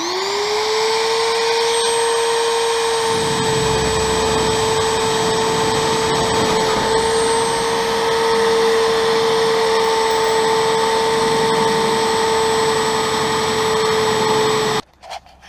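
Electric power tool cutting a sheet-metal siding panel: the motor spins up to a steady high whine at the start, takes on a rougher cutting sound from about three seconds in, and shuts off suddenly near the end.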